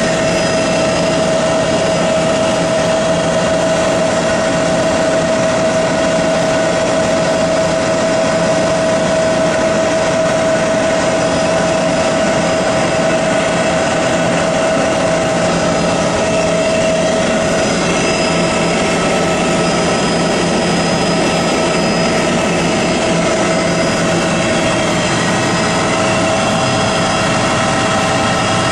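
Light high-wing aircraft's engine and propeller droning steadily, heard from inside the cabin, with a steady whine over it.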